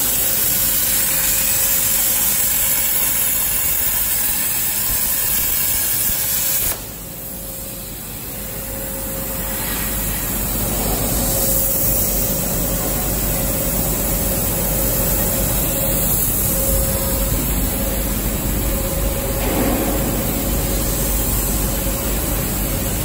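CNC plasma cutter arc hissing steadily as it cuts steel box-section tube, then cutting off abruptly about seven seconds in. Steady machine noise with a faint steady tone then builds back up and continues.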